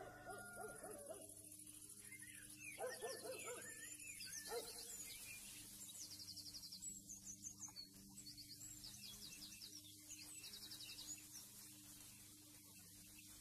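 Faint outdoor animal sounds: a pitched, wavering animal call near the start and again about three seconds in, with high bird chirps over a low steady hum.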